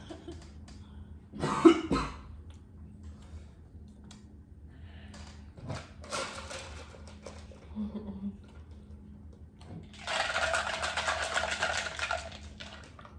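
A person coughs, a sharp double cough about one and a half seconds in, brought on by very hot habanero pepper sauce. Later there is a steady, breathy hissing noise lasting about two seconds.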